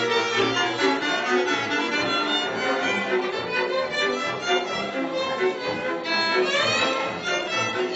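Live small string band of violins and double bass playing a tune, with a fast upward run in the high strings about six seconds in.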